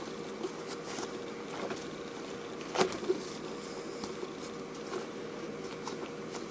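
Hands kneading and squeezing a soft, sticky squishy stress toy: faint scattered tacky ticks and rubbing of skin on its surface, with one sharper click a little before three seconds in, over a steady background hum.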